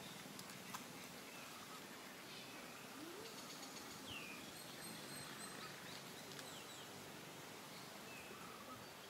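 Faint outdoor ambience with a few scattered, faint bird chirps, one clearer curving chirp about four seconds in.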